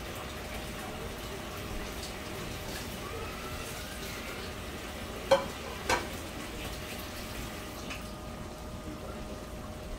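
Thick curry simmering in a non-stick frying pan: a steady bubbling hiss with faint pops. Two sharp clicks about half a second apart come midway.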